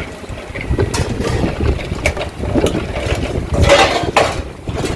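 Stainless steel jar of a Bajaj mixer grinder being set and twisted onto its plastic motor base and its lid pressed down. Irregular clicks, scrapes and knocks of metal on plastic, louder for a moment near the end; the motor is not yet running.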